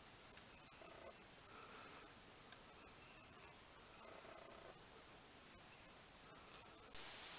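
Faint high-pitched insect trilling from the surrounding trees, in pulses about a second long with short breaks between them.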